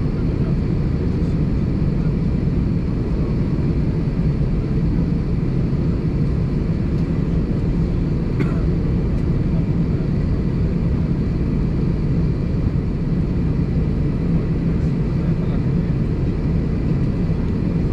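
Steady low rumble inside an Airbus A320's cabin as the airliner taxis slowly with its engines at idle. A faint short chirp comes about eight seconds in.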